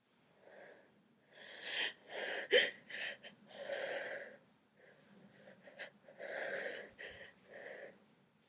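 A woman's gasping, wheezy breaths in a string of short bursts as she holds back a coming sneeze, with a sharper, louder burst about two and a half seconds in.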